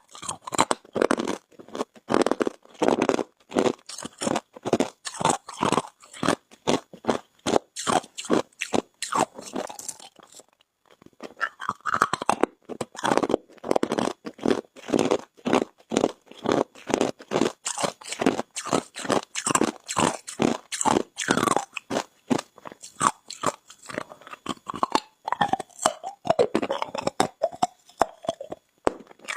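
Hard ice being bitten and chewed: a rapid, steady run of sharp crunches, a few a second, with one short pause about ten seconds in.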